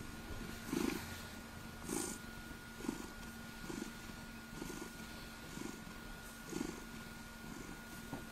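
Ragdoll cat purring while being stroked, the purr swelling with each breath about once a second.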